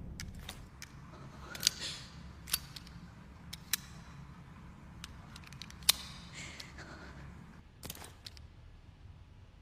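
Irregular sharp mechanical clicks of a handgun's action being handled, a dozen or so spread out with a few louder ones; no shot is fired.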